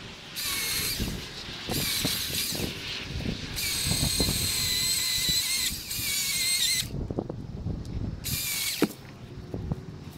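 Milwaukee M18 Fuel battery chainsaw whining as it cuts into a tree, in four bursts, the longest about three seconds in the middle. Between the bursts there are low cracks and knocks of wood and brush.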